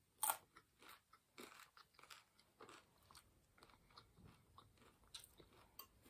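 A person chewing food close to the microphone: faint, irregular crunches, with one louder crunch just after the start.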